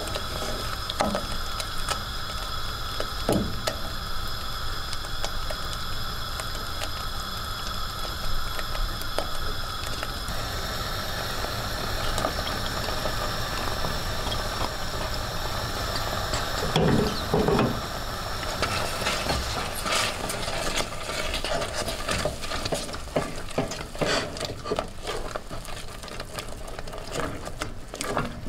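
A butter, flour and ale mixture sizzling in a saucepan while a spoon stirs it, over a steady hiss. Two soft thumps come partway through. Then, as grated cheese is worked into the thickening paste, the spoon scrapes and clicks quickly against the pan.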